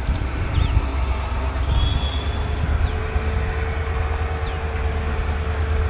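Diesel locomotives of a WDG-4 pair running with a low, steady rumble. Short falling bird chirps repeat over it, and a steady hum joins about three seconds in.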